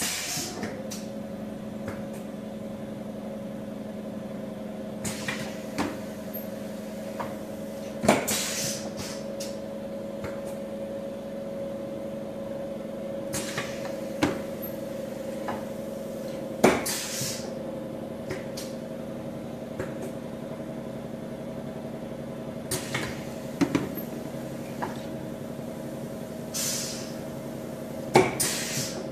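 Four-station pneumatic rotary indexing table cycling: sharp clacks of the air cylinders and indexing table come irregularly every few seconds, several followed by short bursts of air hiss, over a steady hum.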